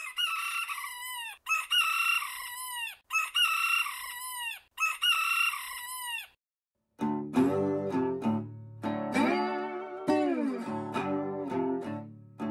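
A rooster crowing four times in quick succession. After a short pause, about seven seconds in, an acoustic guitar starts a blues intro with sliding, bent notes.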